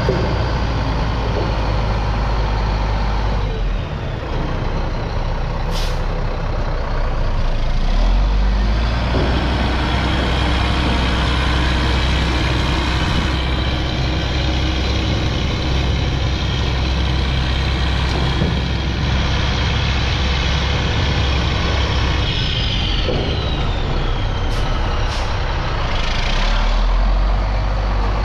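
1999 Mack RD690S concrete mixer truck's diesel engine running as the truck is driven, swelling about 8 seconds in and again near the end. A few brief sharp sounds come over it, one about 6 seconds in and two close together near the end.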